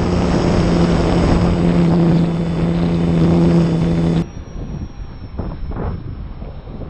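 Radio-controlled airplane's motor and propeller droning at a steady pitch. The drone cuts off abruptly about four seconds in, leaving gusty wind buffeting the microphone.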